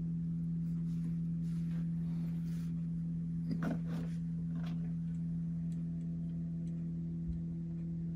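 LowRider v3 CNC's Z-axis stepper motors whining at a steady pitch as they drive the router down toward the touch plate on the faster first probing pass. A few light clicks sound about halfway through.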